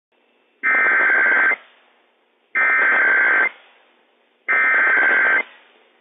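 Emergency Alert System SAME header data broadcast by NOAA Weather Radio station WWF56, opening a Required Weekly Test. It comes as three identical bursts of rapid two-tone digital warble, each about a second long and about two seconds apart, with faint radio hiss between them.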